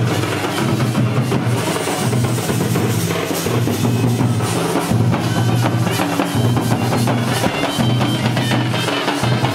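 Mandar barrel drums and large double-headed drums beaten together in a continuous, driving rhythm by a Jharkhand tribal drum band.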